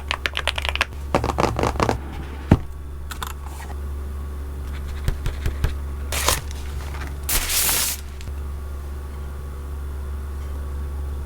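Keystrokes on a Slice75 HE magnetic-switch keyboard: a quick run of typing, then a short cluster of presses and a single sharp click. After that come a few scraping, rustling handling noises, one of them longer near the end, over a steady low hum.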